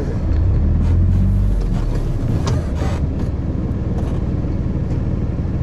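Small off-road buggy's engine running steadily under way, a loud low drone with a few brief knocks and rattles from the vehicle.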